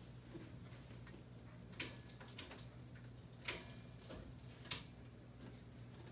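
Three sharp clicks of a dog-training clicker, about a second and a half apart, marking the dog for staying on its mat during shaping, over a low steady room hum.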